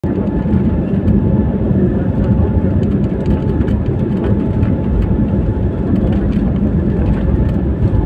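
Jet airliner cabin noise from a window seat as the plane rolls on the ground: a steady, loud low rumble of engines and wheels, with a faint thin steady whine above it.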